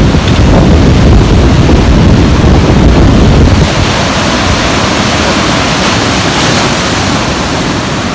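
Rough sea surf breaking on the beach, a loud steady rush, with wind buffeting the microphone. It eases slightly after about three and a half seconds.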